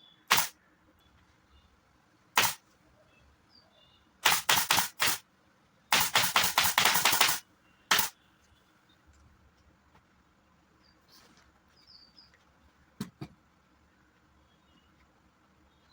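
Upholstery staple gun firing, with single shots and then two quick runs of rapid shots about five and six seconds in, as fabric is stapled onto a sofa frame.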